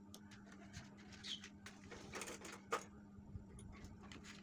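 Light clicks and taps of PVC pipe and small plastic fittings being handled on a concrete floor, with a brief rustle around the middle and one sharper click just after it, over a faint steady hum.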